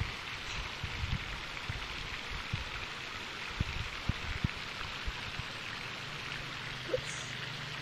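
Steady outdoor hiss, with scattered short low thumps and a low steady hum that joins about six seconds in.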